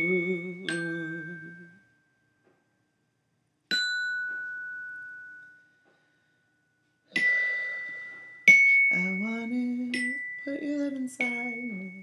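Single struck bell-like chime notes ringing out and fading, with short silences between them. From about two-thirds of the way in, a wordless hummed melody joins further chime strikes.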